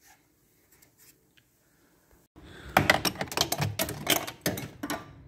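Quick, irregular run of clicks and scrapes from hand-tool work on a car battery as its terminals and clamp are undone and it is lifted from its tray, starting about two and a half seconds in after a near-silent pause.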